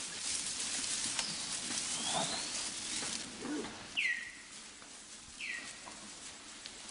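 Forest ambience: a steady high hiss with scattered clicks and rustles, and a bird giving two short falling calls, about four and five and a half seconds in.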